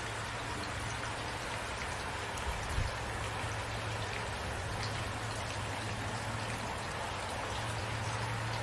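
Steady rain falling, an even hiss of many drops with a low steady rumble beneath. A brief low thump about three seconds in.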